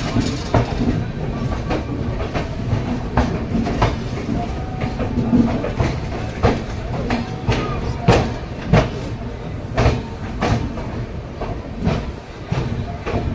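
Passenger train's LHB coaches running on the track: a steady low rumble with sharp clacks of the wheels over rail joints coming at uneven intervals.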